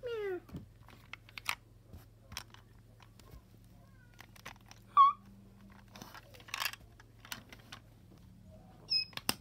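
Plastic toys clicking and knocking as they are handled and moved over a fabric blanket, with a short falling meow at the start and a short squeak about halfway through. A low steady hum runs underneath.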